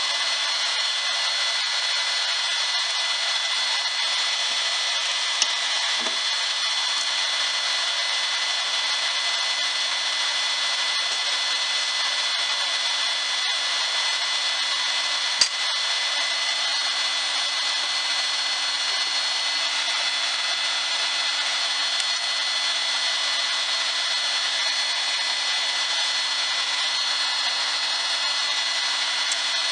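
Heat gun running steadily, a constant hiss of blown air with a high whine, with two sharp clicks, about five seconds in and about fifteen seconds in.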